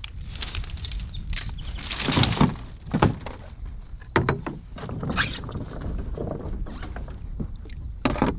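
Knocks, thumps and rustling as a 15 ft Nova Craft Prospector canoe is boarded from a rocky shore, the paddle and the paddler's weight knocking against the hull, about five sharp knocks in all, over a low rumble.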